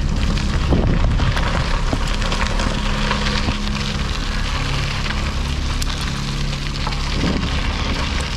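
Gravel bike tyres rolling over a gravel rail trail, a continuous crunching crackle at riding speed.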